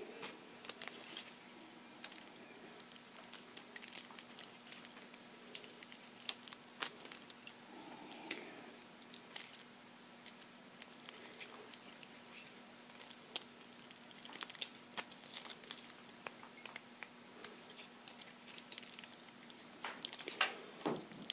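Utility knife blade scoring around the shield of an RG6 coaxial cable: faint, scattered clicks and small scraping crinkles.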